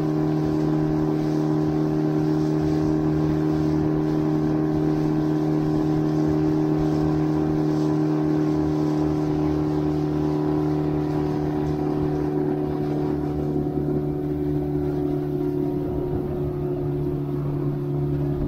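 Outboard motor of a rigid inflatable boat running at a steady cruising speed, holding one even pitch, over the rush of water and wind past the hull.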